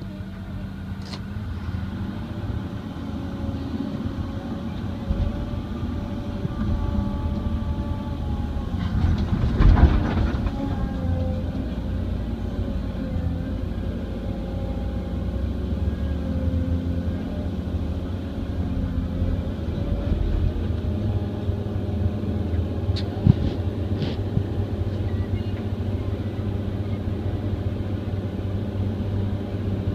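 Excavator's diesel engine running under hydraulic load while digging and loading dry clay, its pitch rising and falling as the machine works. A heavy thump about ten seconds in and a couple of sharp clanks near the end.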